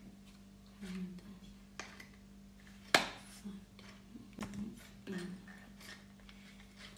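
Black plastic ring-light mount parts being handled and fitted together: one sharp click about three seconds in, with fainter knocks and clicks around it.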